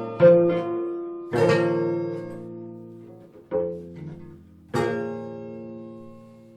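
Harp being plucked in full chords: four chords struck a second or two apart, each left to ring and fade, the last one dying away slowly near the end.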